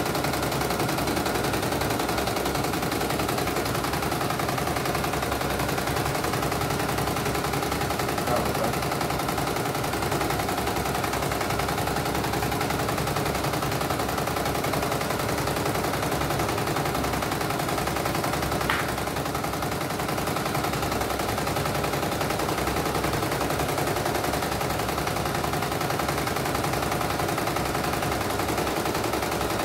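CNY E900 computerized embroidery machine stitching steadily, a fast even needle rattle as the hoop carries the fabric under the needle, running normally on its test after a mainboard replacement. One sharp click a little past halfway.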